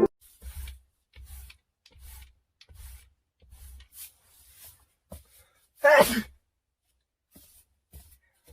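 A person sneezing once, loudly, about six seconds in, after a run of soft, evenly spaced breathy sounds.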